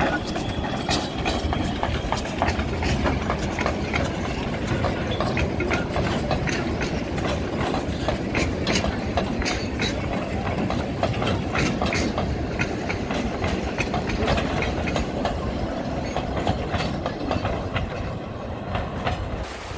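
Narrow-gauge steam train passing close by: first the steam locomotive, then a long line of open passenger carriages, rattling steadily with many sharp clicks and clanks of wheels and couplings over the track. It eases off slightly near the end as the train moves away.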